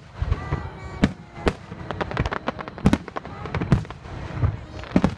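Aerial fireworks shells bursting: a run of sharp bangs at uneven intervals, about one to two a second, with low rumble between them.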